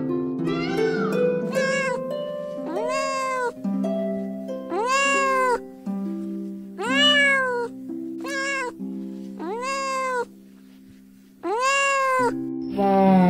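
Domestic cat meowing repeatedly, about eight separate meows, each rising then falling in pitch, over soft background music with held notes. Just before the end a louder, lower animal call cuts in.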